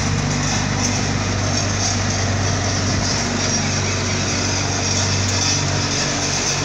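Backhoe loader's diesel engine running steadily.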